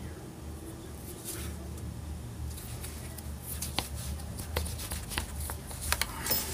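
Hands handling a leather belt strap fitted with a brass ring and brass rivets: rustling with a few light clicks, the sharpest near the end, over a low steady rumble.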